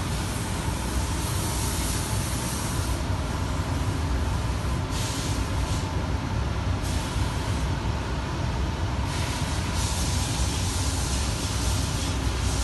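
Steady low machine rumble with a high hiss that cuts out and comes back several times.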